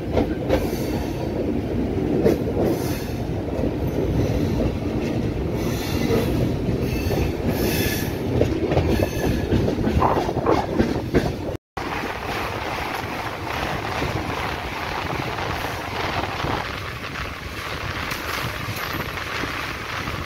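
Passenger train coach running, with wheels clattering over rail joints and a few brief wheel squeals as it moves through a station. After a break about halfway through, the sound settles into a steadier rumble as the coach crosses a steel truss bridge.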